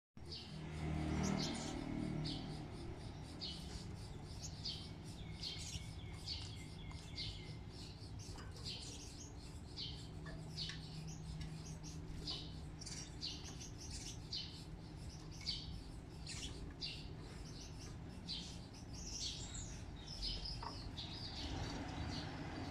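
Small birds chirping: many short, high chirps, about one every second, over a low steady hum.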